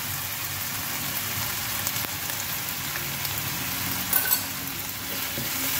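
Beef, spices and chili powder frying in a nonstick pan: a steady sizzling hiss. Two sharp clicks come about four seconds in.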